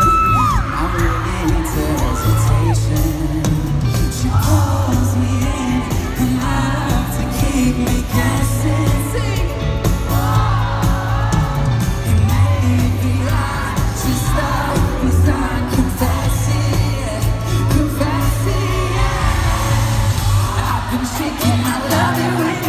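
Live pop band music with singing, heard from the seats of a large arena: guitars, a steady bass line and drums. A high shout from the audience cuts through right at the start.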